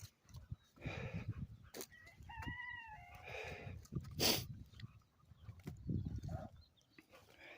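Footsteps on the trail, with one short, pitched animal call about two and a half seconds in that drops in pitch at its end, and a brief hiss about four seconds in.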